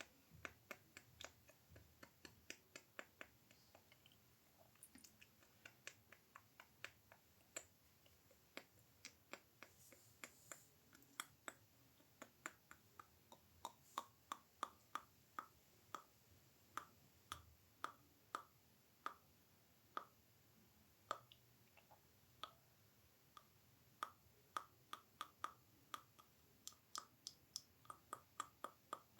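ASMR mouth sounds: sharp tongue clicks and mouth pops, several a second in an uneven rhythm. From about halfway on, many of the clicks take on a hollow, clucking pitch.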